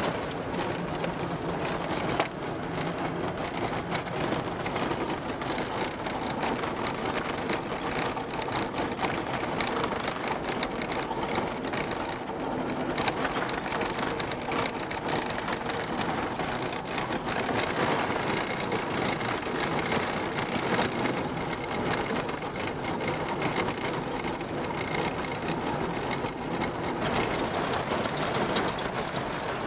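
Vehicle cabin noise while driving an unsealed dirt track: engine running under a steady rush of tyre and road noise with constant rattling from the rough surface. A single sharp knock about two seconds in.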